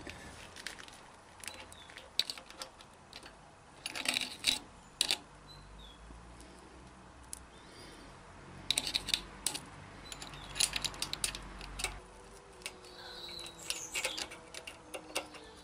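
Metal roller-chain links and small parts clinking and rattling in irregular clusters of sharp clicks, as a motorcycle primary chain is handled.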